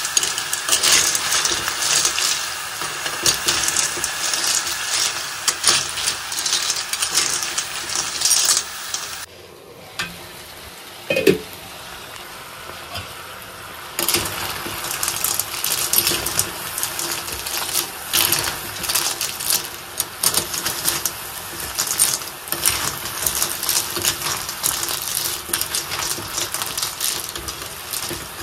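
Snails in their shells stir-frying in an aluminium kadhai: oil sizzling while a steel spoon stirs, the shells clattering and scraping against the pan. About nine seconds in, it goes quieter for some five seconds, with a brief falling tone, then the stirring and clatter resume.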